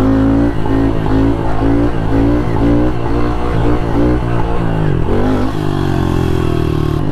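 Honda CRF110 pit bike's small single-cylinder four-stroke engine running under the rider, its revs rising and falling in short pulses with the throttle; the revs drop about five seconds in and then climb again.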